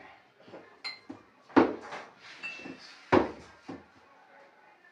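Glass soda bottles and tableware set down on a table: two sharp knocks about a second and a half apart, with lighter clinks and brief glassy rings between them.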